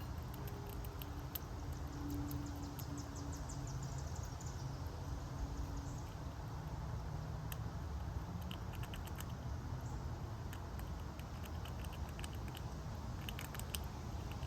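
Backyard feeder sounds: scattered small clicks and a light patter, typical of squirrels and birds handling and eating food, with a rapid run of high ticks about a second in. A steady low rumble runs underneath.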